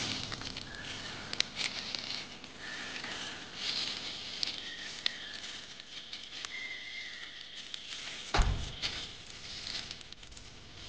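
Irregular crackling and rustling with many small clicks, a few short high chirps, and one sharp knock about eight seconds in.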